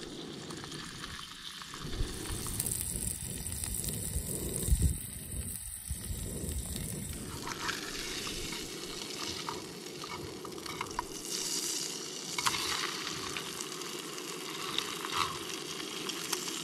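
Trout fillets and trout eggs sizzling in butter in a small camp frying pan, a steady frying sound with a few light clicks and knocks.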